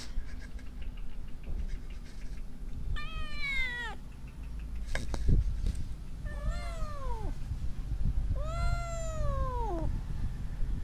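Cat meowing three times, each call rising then falling in pitch, the last one the longest. A sharp tap comes between the first and second meow, over a low rumble of handling noise.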